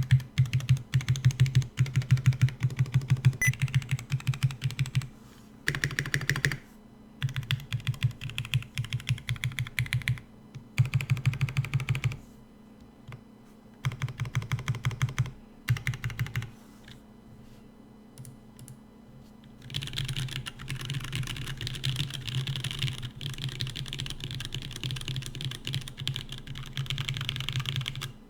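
Typing on a TX75 mechanical keyboard with Vint Black (vintage Cherry MX Black) linear switches and GMK keycaps: runs of rapid keystrokes in bursts of a second or two with short pauses between them. About two-thirds of the way in, the typing turns into one longer, steadier and quieter run.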